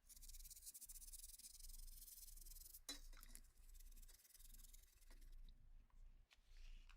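Faint scrubbing of rusted pistol metal with an abrasive pad or brush for about three seconds, followed by a short click and a few light ticks of metal parts.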